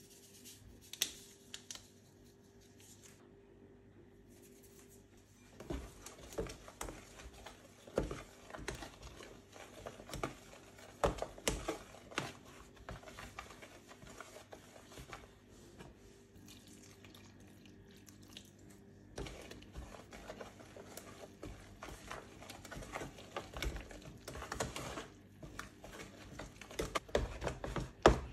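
Metal spoon scraping and knocking against a plastic tub in irregular bouts while flour, yeast and mashed banana are stirred together, turning to wet squelching stirs as the batter comes together near the end.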